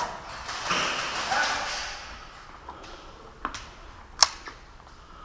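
Airsoft guns firing: a few sharp single cracks, the loudest about four seconds in, after a rustle of movement in the first two seconds.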